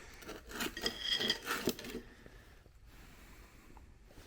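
Metal differential parts being handled: a run of clinks and scrapes with a brief metallic ring about a second in, then quieter handling noise for the last two seconds.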